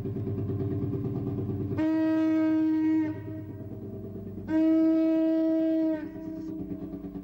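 A narrow boat's horn sounds two long steady blasts over the steady chugging of the boat's semi-diesel engine. In canal language the blasts mean 'please get out of the way'.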